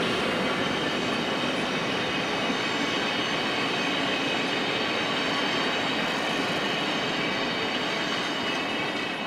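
ÖBB CityShuttle passenger coaches rolling past on the rails: a steady rumble with a thin, high squeal held over it. The sound drops away near the end as the last coach goes by.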